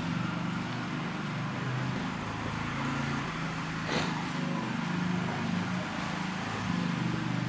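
Generator engine running steadily with a low hum, with a single sharp click about four seconds in.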